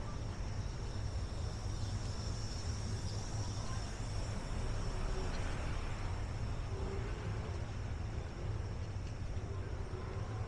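Steady city street ambience: a low rumble of distant traffic under a faint, constant high-pitched whine.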